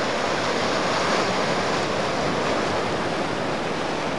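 Ocean surf breaking and washing over a rocky shore: a steady, even rush of water.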